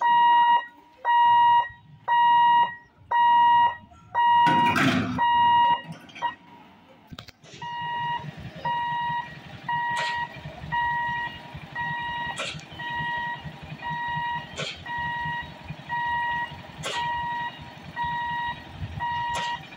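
Railway level-crossing warning hooter beeping, a repeating electronic tone about one and a half times a second while the gate is closed. A brief loud noise burst comes about four and a half seconds in; after about seven seconds the beeping goes on fainter over a low rumble, with a sharp click every two seconds or so.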